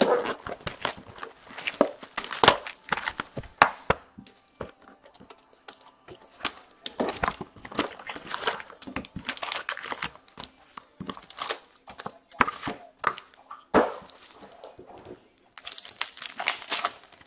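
A trading-card box and its packs being torn open by hand: plastic and foil pack wrappers crinkling and tearing in irregular bursts of crackling, with brief lulls.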